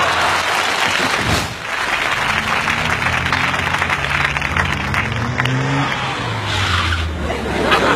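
Audience laughter and applause that cuts off after about a second and a half. Then street traffic, with a vehicle engine rising in pitch as it accelerates away.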